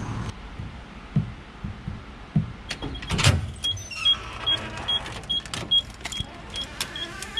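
A car's warning chime beeping evenly at nearly three high beeps a second, starting about three and a half seconds in, after a few soft knocks and a louder thump.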